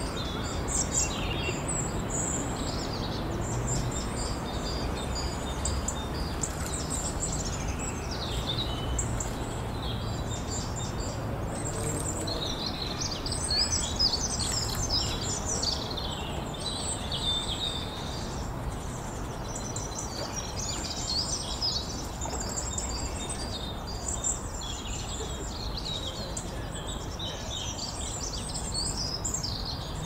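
Many short, high-pitched bird chirps and peeps, coming thick and fast with a few louder bursts, over a steady low background noise.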